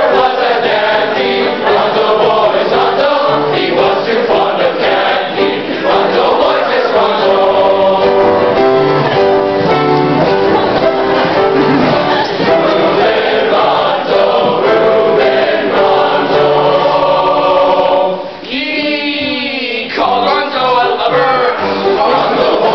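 Boys' choir singing a shanty, several voices together, with a long falling glide in pitch about three quarters of the way through.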